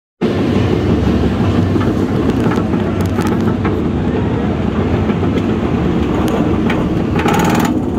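Alpengeist inverted roller coaster train climbing its chain lift hill: a steady, loud rumbling clatter of the lift chain, with scattered clicks.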